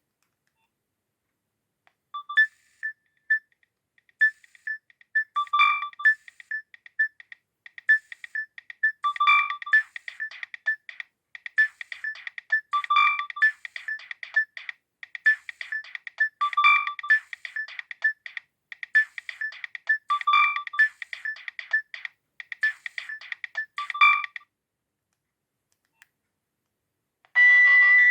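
Nokia 6610 mobile phone playing a ringtone: a melody of short, quick repeated beeps, about three a second, with a louder accented note about every three and a half seconds. It starts about two seconds in and stops suddenly, and a different, denser ringtone begins near the end.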